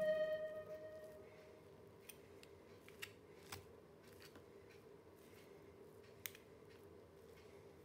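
Background music fading out within the first second, then near silence with a few faint clicks and scrapes of a metal spoon against the pot as cooked pulao rice is turned over.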